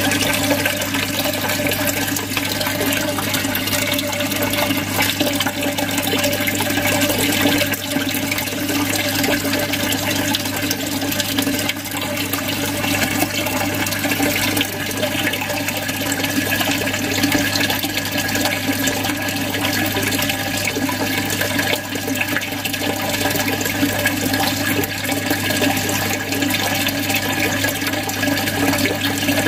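Aquarium filter outlet splashing and gurgling steadily into the tank, its stream falling onto the surface because the water level is low and churning up bubbles. A steady low hum runs underneath.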